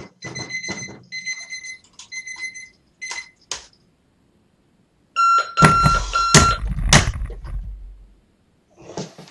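Electronic alarm clock beeping in rapid pulses, several a second, stopping about three and a half seconds in. After a short pause, a different alarm beep starts along with several loud thuds, then a short noisy burst near the end.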